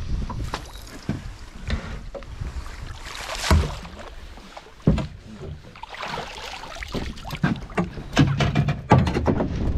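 Scattered knocks and thuds aboard a small fishing boat over a low rumble of wind on the microphone. The loudest knocks come about three and a half seconds in, about five seconds in, and near the end, with a quicker run of knocks just before.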